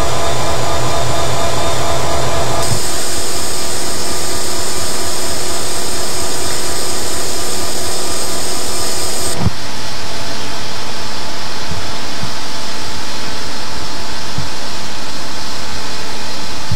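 EMD GP7 diesel locomotives idling up close, their two-stroke V16 engines giving a steady low pulsing drone with a bright hiss on top. The sound changes abruptly about two and a half seconds in and again about nine and a half seconds in.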